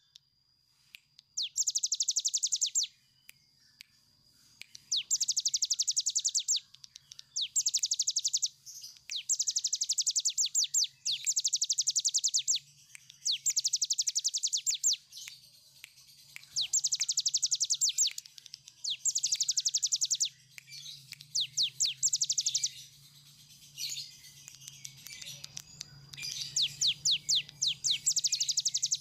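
Caged ciblek gunung (cigun), a prinia, singing its long 'ngebren' song: about ten runs of very fast, high, rattling repeated notes, each one to two seconds long, with short pauses between them.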